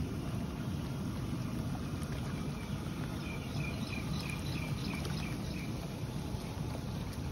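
Swimming pool water jets churning the water steadily. In the middle, a run of about eight short high chirps, about three a second.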